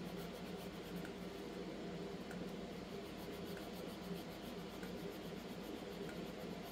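Quiet scratching of a fingernail file on the edge of a cured resin shaker, roughing the shiny surface so that UV resin will bond to it, over a steady low hum.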